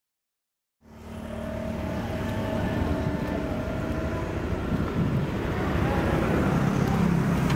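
After a moment of silence, street traffic fades in and grows louder: motorbikes and cars running and passing, a steady engine hum.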